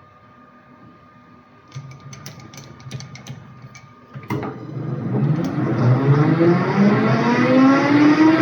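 Several light clicks and knocks, then a sharp click about four seconds in as a machine tool's electric motor is switched on and spins up, its whine rising steadily in pitch.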